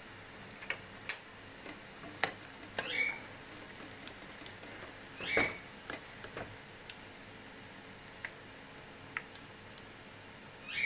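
Slotted spatula clicking and scraping against a pot while turning frying onions, with scattered light knocks and three short rising squeaks, the loudest about halfway through.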